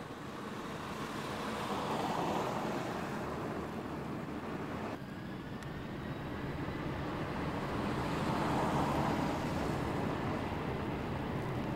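Freeway traffic rushing past, with vehicles swelling by about two seconds in and again around eight to nine seconds.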